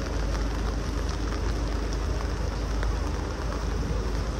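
Steady rain falling, with scattered faint drop ticks and a strong low rumble underneath.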